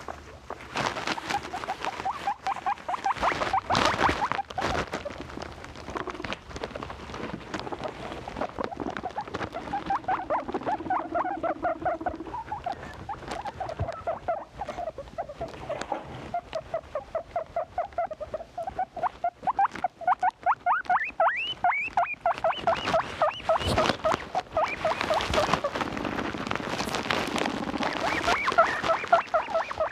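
Guinea pigs calling in long runs of short, quick squeaks, about four or five a second, climbing to a much higher pitch about twenty seconds in. Bursts of rustling and scuffling break in now and then.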